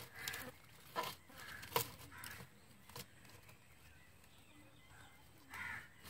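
A few sharp clicks and taps from hands working a plastic basket and its string. Between them come short animal or bird calls, one near the start, a couple in the middle and one near the end.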